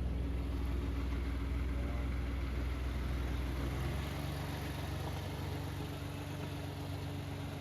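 Tractor engine idling steadily, its note changing slightly about four seconds in.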